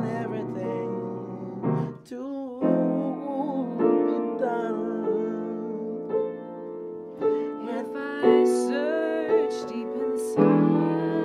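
Live piano ballad: piano chords with a sung vocal line over them.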